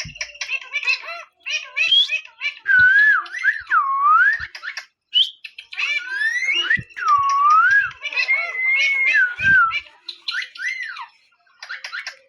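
Parrot whistling and chattering: loud whistles that glide up and down in pitch, mixed with short squawky calls, with a brief pause about five seconds in and again near the end.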